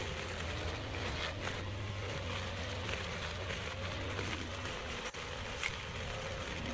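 Backpack brush cutter's small engine running steadily under load as it cuts tall grass and weeds, a continuous hum whose pitch wavers slightly.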